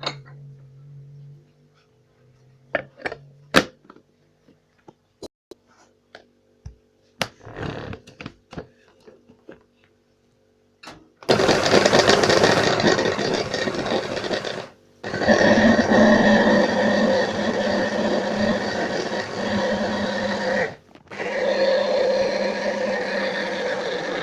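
Electric blender running on banana in three stretches of several seconds each, stopped briefly twice. Before it, a scatter of clicks and knocks from kitchen things being handled.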